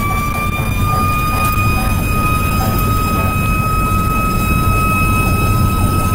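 Fire engine siren heard from inside the cab: one continuous high tone that climbs slightly in the first second and then holds a steady pitch, over the low rumble of the truck's engine and road noise.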